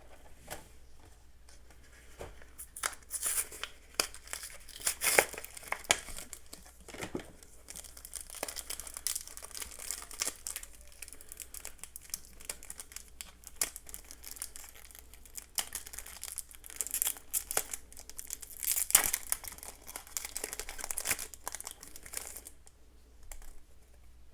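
Foil Yu-Gi-Oh! booster pack wrapper being crinkled and torn open by hand: irregular crackling that goes on for most of the stretch, with a few louder rips.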